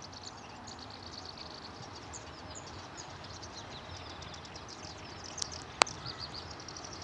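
Small birds chirping over steady low outdoor background noise, with one sharp click about six seconds in.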